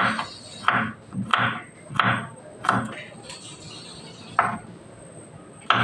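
Rhythmic kitchen-utensil strokes in food preparation: seven sharp knocks, each with a short scraping tail, coming about every two-thirds of a second, with a pause of over a second after the fifth.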